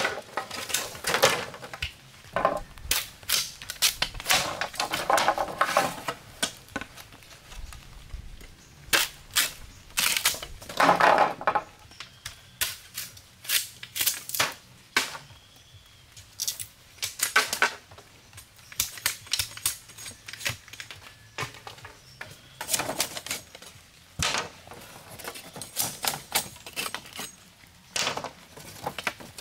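Bamboo being worked by hand: irregular sharp knocks and cracks, some in quick runs, with short pauses between.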